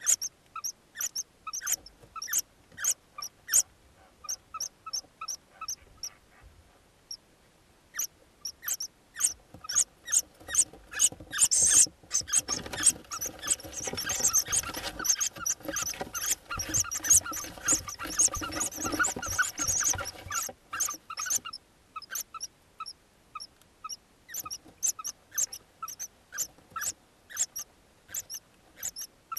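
Hoopoe nestlings calling in a nest box: short, sharp calls repeated several times a second. From about twelve seconds in, several chicks call at once in a dense, louder chorus for about eight seconds, then it thins back to single repeated calls.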